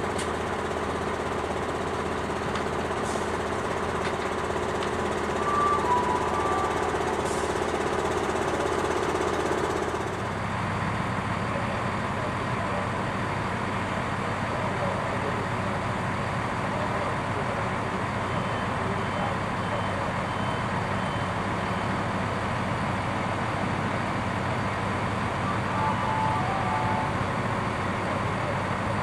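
Diesel railcars idling at a station: a MÁV Bzmot railcar's engine with a steady hum, which stops sharply about ten seconds in, then a steadier low rumble from an idling Siemens Desiro diesel multiple unit. A few faint short beeps sound midway through.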